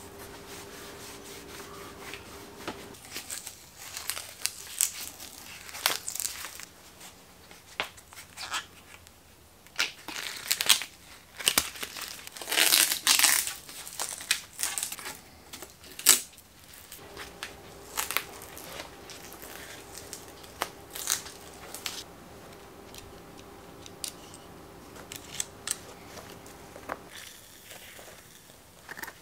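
Hands cleaning and working on a bicycle. A rag rubs the frame, then there is crinkling, crumpling and tearing with scattered clicks and taps from handling around the handlebars, loudest in a noisy stretch about halfway through. A faint steady hum sits underneath at the start and again through the later part.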